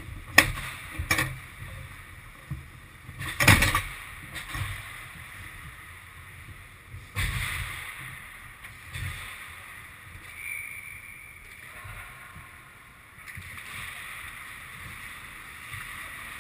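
Ice hockey play on a rink: a few sharp clacks in the first four seconds, the loudest about three and a half seconds in, then from about seven seconds in a hiss of skate blades scraping the ice.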